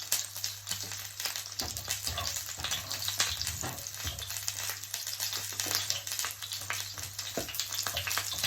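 Salmon frying in oil in a frying pan: continuous sizzling with many small crackles and pops, over a steady low hum.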